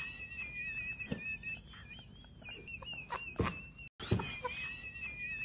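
A man's wheezing laugh: a thin, high whistling wheeze that wavers slightly in pitch, broken by sharp gasping breaths about a second in and again past the three-second mark.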